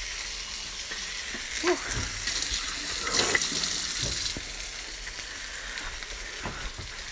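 Thin-sliced steak sizzling in oil in a nonstick frying pan, a steady hiss that swells for a couple of seconds in the middle, with a few light knocks of the pan.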